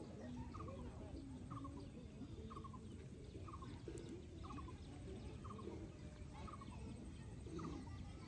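An animal call, a short pulsed chirp, repeated steadily about once a second over faint background noise.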